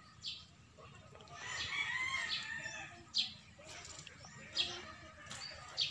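A rooster crows once in a long, wavering call starting about a second and a half in. Short sharp bird chirps repeat every second or so.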